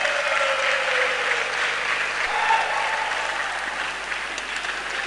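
Spectators in a sports hall applauding and cheering after a point in a badminton doubles match. A long shout slides down in pitch in the first second or so.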